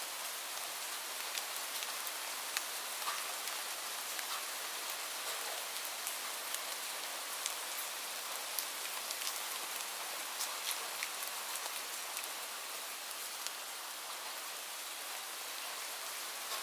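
Light rain falling steadily: a soft even hiss with scattered individual drops ticking at irregular moments.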